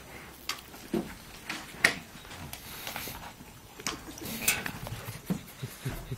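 A small dog and young water buffalo scuffle on a dirt floor: irregular knocks and scuffs, with a short low animal sound about a second in.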